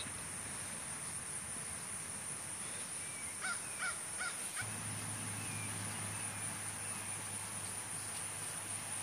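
Steady high-pitched insect drone, with a bird giving four short calls in quick succession about three and a half seconds in. A faint low hum comes in about halfway through.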